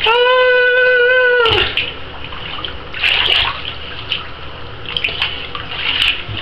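Water sloshing and lightly splashing in a bathtub as pet rats swim, with a few short splashes. At the start, a loud, steady high-pitched note lasts about a second and a half and dips at its end.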